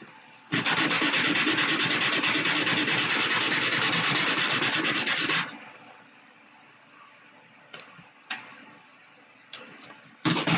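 A 3D-printed plastic model part being rubbed by hand on a sheet of sandpaper, a steady scratchy sanding sound for about five seconds, done to flatten a slight warp. It stops for a few seconds, with a few light taps, then the sanding starts again just before the end.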